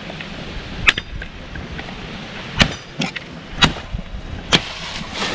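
A series of sharp knocks, about six, irregularly spaced roughly a second apart, over steady wind noise.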